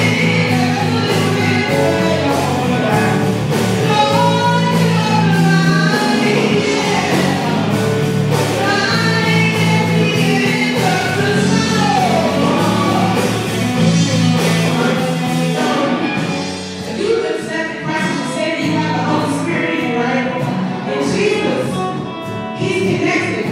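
A woman singing solo, in a gospel style, over live band accompaniment with sustained chords and a steady beat. The music dips briefly about two-thirds of the way through, then comes back up.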